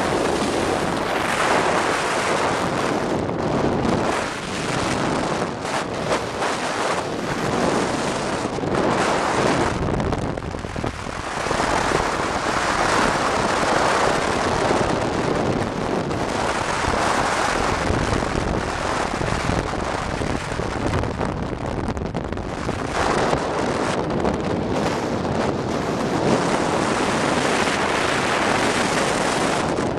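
Road noise from a vehicle in motion: tyres running on asphalt, with wind rushing over the microphone. A steady, loud roar that dips briefly a couple of times.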